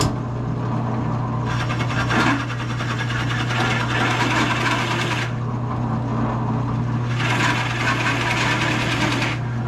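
Drill press motor switching on and running steadily while a Forstner bit bores into a wooden guitar body, with two spells of rough cutting noise: the first about four seconds long, the second about two.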